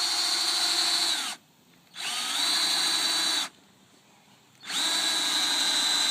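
Cordless drill running a bit through the thick stacked pages of a book, in three separate runs of about a second and a half each, its steady whine rising briefly as each run starts.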